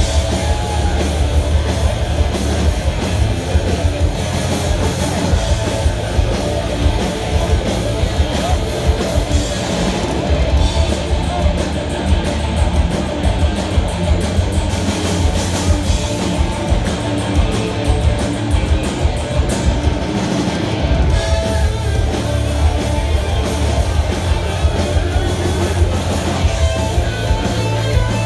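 Thrash metal band playing live: distorted electric guitars, bass guitar and drum kit, loud and continuous, recorded on a phone from the crowd.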